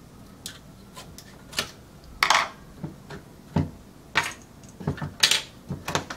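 Plastic clicks and knocks from handling an AP Bobinquick-135 bulk film loader, a dozen or so separate sharp clicks as parts are fitted and removed and its hinged lid is shut near the end.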